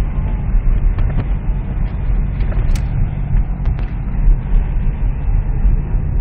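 Steady low rumble of a car driving, heard from inside the cabin: road and engine noise with a few faint clicks.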